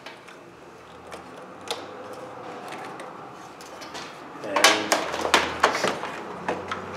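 Clicks and knocks of a power probe tester and its leads being handled at a car battery: a single sharp click about a second and a half in, then a run of clattering knocks a little past the middle.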